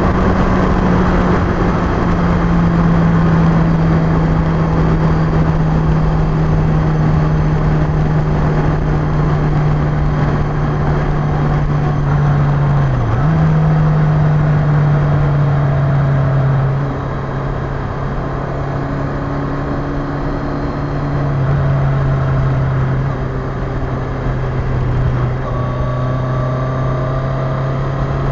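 Yamaha XJ900S air-cooled inline-four engine running at steady cruising speed under heavy wind and road noise. About halfway through, the engine note drops lower and quieter as the bike slows, after a brief dip in pitch a little earlier.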